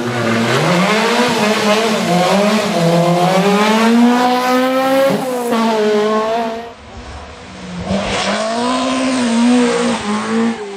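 Rally car engine revving hard, its pitch climbing and falling repeatedly as it is driven through the gears, with a sharp drop about halfway. It eases off briefly about two-thirds of the way through, then picks up again.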